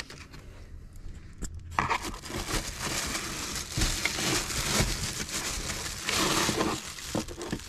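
Plastic wrapping crinkling and rustling as new headlight units are handled and pulled out of their box and foam packing, quieter for the first second or so and then continuous.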